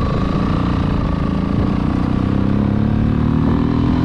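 Motorcycle engine running under way with the rider aboard, its note climbing steadily through the second half as the bike accelerates.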